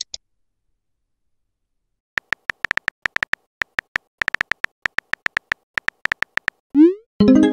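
Texting-app sound effects: after a short silence, a run of quick electronic key-tap ticks as a message is typed, then a short rising swoosh as it is sent, followed by a ringing chime that fades away.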